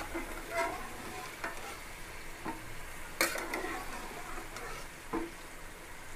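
Pieces of country chicken frying in an aluminium pressure cooker while a ladle stirs them, knocking and scraping against the pan at irregular intervals; the loudest knock comes about three seconds in.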